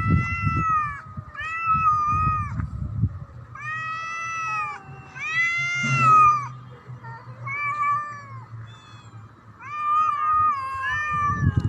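A cat meowing loudly again and again, about seven long drawn-out calls that rise and fall in pitch, with a low rumbling noise under some of them.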